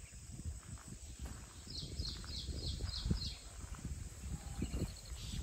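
A bird calling a quick run of about six short, high chirps, about five a second, starting a little under two seconds in. Low rumble and thumps sound underneath.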